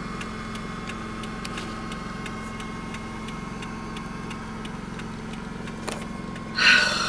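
Car engine idling, heard from inside the cabin as a steady hum with faint scattered ticks. Near the end comes a single click, then a sudden loud breathy burst as the bison passes against the car.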